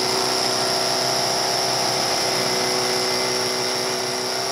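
Power tool running steadily with a high whine, easing slightly in level near the end.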